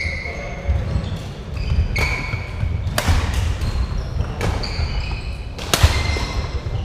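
Badminton rally: several sharp hits of rackets on the shuttlecock, the loudest about three seconds in and near the end, with short squeaks of shoes on the wooden court floor and footsteps between them.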